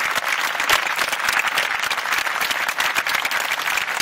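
Large audience applauding, many hands clapping in a dense, steady patter.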